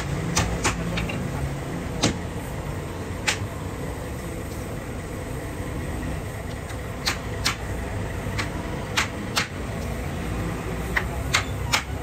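A hammer striking the wooden frame of a fridge stand: about a dozen sharp blows in irregular groups, several coming in quick pairs, over a steady low background rumble.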